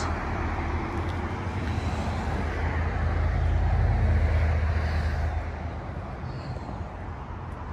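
Road traffic going by: a steady low rumble, with a passing vehicle swelling to its loudest about halfway through and then fading away.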